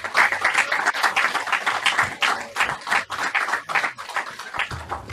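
Audience applauding, the clapping thinning out near the end, as closing music begins just before it stops.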